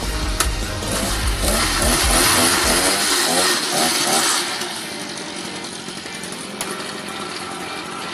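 Small two-stroke engine of a Mitsubishi TB50 portable drilling machine revving up, then dropping back about halfway through to a steadier, lower run.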